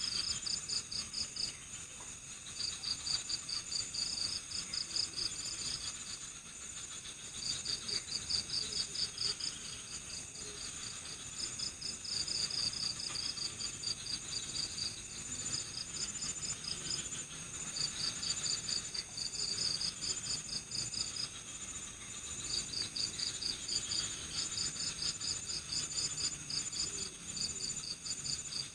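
Night-time chorus of crickets: one chirps in repeated trains of rapid pulses, each a second or two long with short pauses between, over a steady high-pitched trill.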